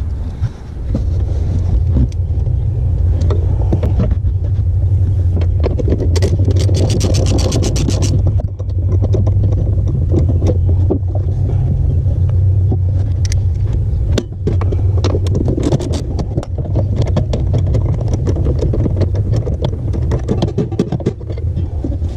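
A 3/8-inch ratchet with a 12 mm deep socket on extensions clicking in a quick run, then in scattered clicks, as it backs off the two 12 mm nuts holding the clutch master cylinder. A steady low rumble runs underneath.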